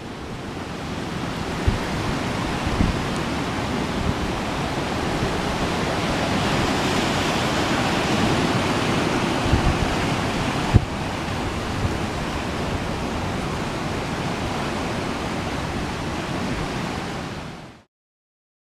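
Waves breaking on a rocky reef shore: a steady rush of surf, with wind on the microphone and a few light knocks. It fades out to silence near the end.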